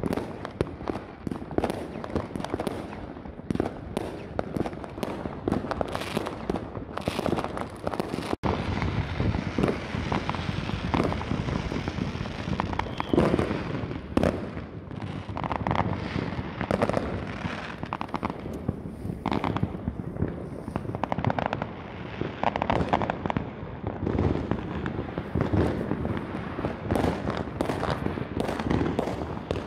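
Many fireworks going off at once: bangs and pops in close succession, with no pause.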